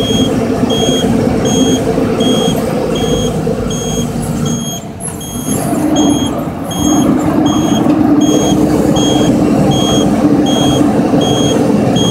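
Mack work truck's diesel engine and road noise, loud inside the cab. The engine dips about five seconds in and comes back at a slightly higher pitch. A high electronic warning beep repeats steadily, about four times every three seconds.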